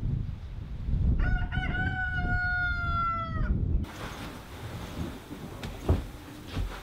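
A rooster crowing once, one long call of about two seconds that rises at the start and then holds, over low wind rumble on the microphone. After it, a few soft rustles and light knocks of a bedspread being smoothed on a bed.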